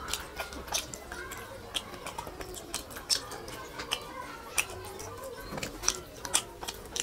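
Close-miked eating sounds of a person eating rice and curry by hand: wet smacking and chewing clicks and fingers squishing rice, irregular and sharp, a few a second.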